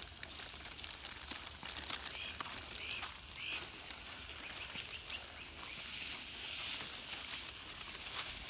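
Outdoor ambience: a steady low rumble with a few faint bird chirps about two to three and a half seconds in.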